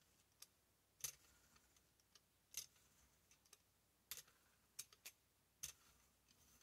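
Faint, unevenly spaced clicks and ticks from a brayer being rolled through wet acrylic paint on a gel printing plate and lifted off and set back down on it.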